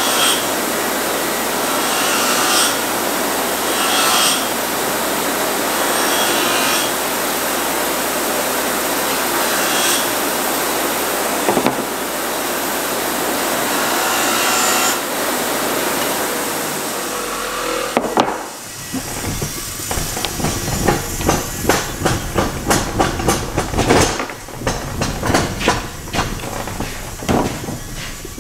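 Bench grinder running steadily while a knife blade is worked against its wheel; the sound brightens briefly every couple of seconds as the blade is pressed on. About eighteen seconds in it stops, and a run of light clicks and knocks follows as knife blanks are picked up and set down on a wooden workbench.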